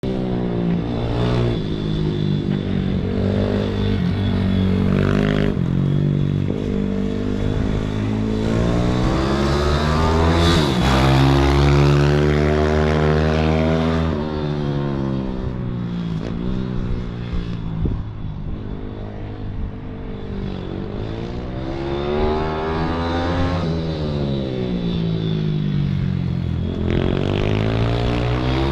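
Small racing engines lapping a track, revving up and easing off again and again as they take the corners, loudest about ten to fourteen seconds in. A steady high-pitched whine runs underneath.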